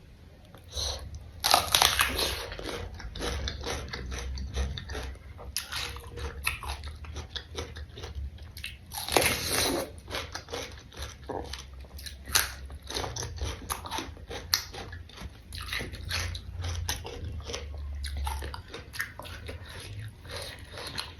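A person biting and chewing crunchy raw vegetables dipped in sambal, with many wet crackling crunches. The loudest bites come about two seconds in and again about nine seconds in, over a faint low hum.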